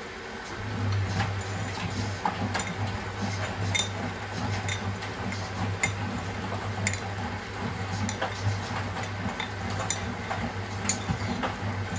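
Miele WS 5405 front-loading washing machine tumbling its wash. The drum motor starts turning about half a second in with a steady low hum, and the load of a jacket and trainers clinks and ticks against the drum roughly once a second.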